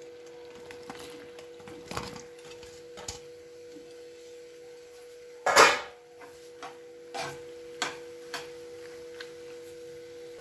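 Boiled macaroni being tipped from a bowl into white sauce in a frying pan: scattered light clinks and knocks of the bowl and spoon against the pan, with one sharp, loud knock about halfway through. A faint steady hum runs underneath.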